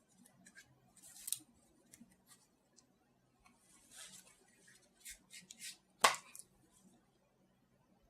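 A deck of playing cards being bent and released in a waterfall flourish: soft papery rustles and flicks as cards spring from one hand into the other. A single sharp click comes about six seconds in.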